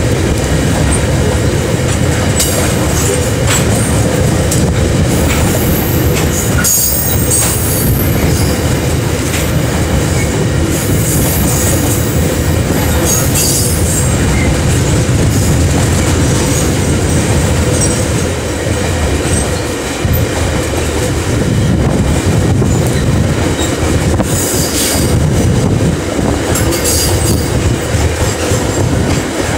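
Coal wagons of a KiwiRail freight train rolling past at close range: a steady heavy rumble of steel wheels on rail, broken several times by bursts of high-pitched wheel squeal.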